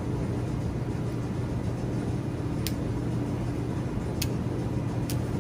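Steady low hum with a constant noise background, broken by three light clicks in the second half.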